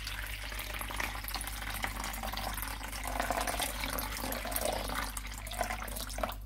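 Fresh water poured in a steady stream from a jug into a large plastic bowl, splashing against the bottom as the bowl fills; the pour stops abruptly at the very end.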